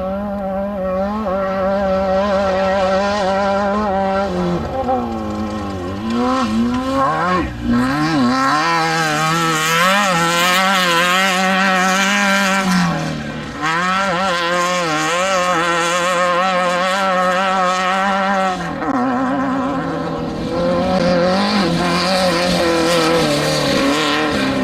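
Off-road desert race vehicle's engine running hard, its pitch wavering and dropping several times as it revs up and eases off.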